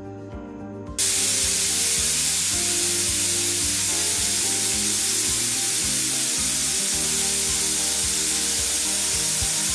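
Stovetop pressure cooker whistling: steam jets from its weight valve in a loud, steady hiss that starts abruptly about a second in, the sign that the cooker is at full pressure.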